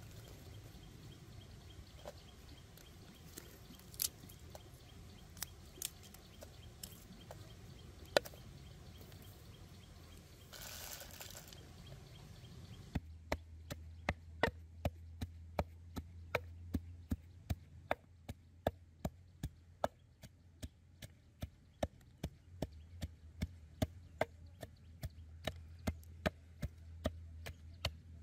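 Knife chopping on a wooden board: scattered single knocks at first, then from about halfway in a steady run of strokes about two a second.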